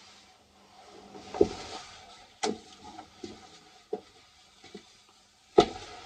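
Scattered clicks and knocks from hands working a tool among the wiring of an alarm control panel, with a brief rustle; the loudest knocks come about a second and a half in and near the end.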